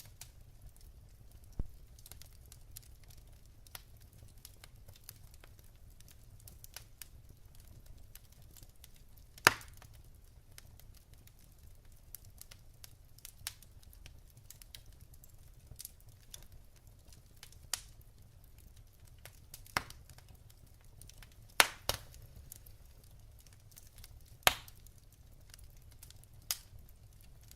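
Wood fire in a fireplace crackling, with irregular sharp pops from the burning logs; a few pops stand out loud, one about a third of the way in and two more later on.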